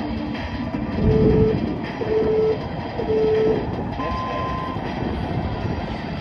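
Electronic workout-timer countdown: three short beeps of the same pitch, a second apart, then one longer, higher beep that marks the end of the count. Under it runs a steady rumbling noise.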